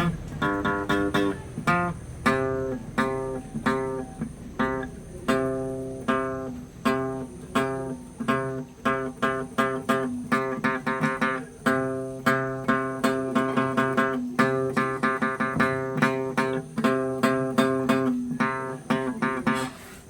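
Guitar solo: plucked single notes played in quick repeated runs and figures, stopping at the very end.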